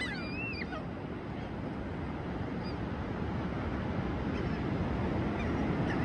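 Laughing gulls giving short, bending calls, clearest in the first second with a few fainter ones later, over a steady rush of surf.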